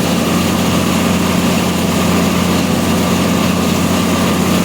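Combine harvester running steadily while harvesting soybeans, a constant engine and threshing drone with a strong low hum.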